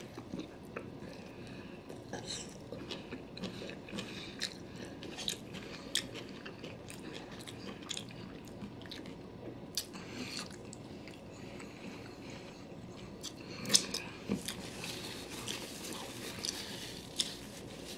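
A man chewing sushi rolls close to the microphone: soft, wet chewing with small scattered mouth clicks, a little louder about three-quarters of the way through. A paper napkin rustles near the end.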